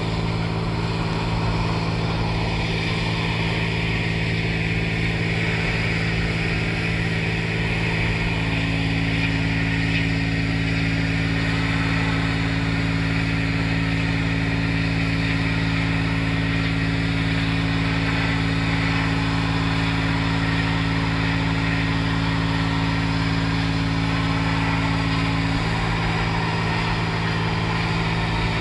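Hot-water high-pressure washer running at about 250 bar: the machine's steady drone under the hiss of the jet spraying a brick wall. A higher hum joins about eight seconds in and drops out near the end.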